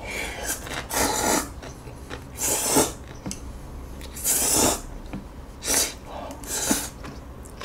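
A person slurping instant ramen noodles off chopsticks, about six separate wet slurps with short pauses between.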